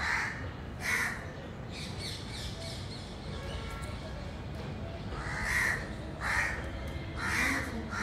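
Crows cawing: a harsh caw at the start and another about a second in, then a run of three from about five seconds on.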